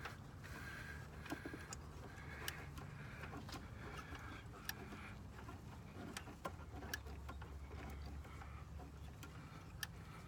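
Faint, scattered clicks and clinks of hand tools working on the engine while spark plugs are being removed, over a low, steady hum.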